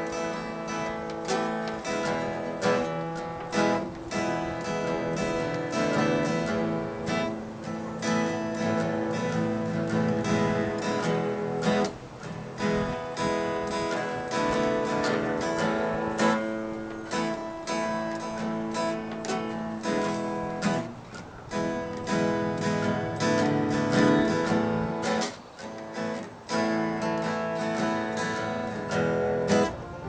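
Acoustic guitar being strummed, playing chords with frequent strokes and no singing.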